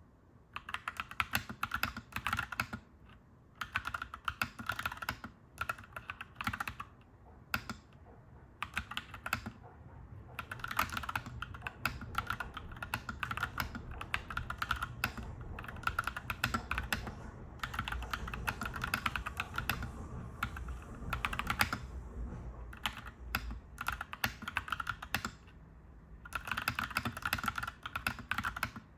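Clacky mechanical keyboard being typed on in bursts of rapid keystrokes, with brief pauses between runs. A low rumble underneath swells through the middle.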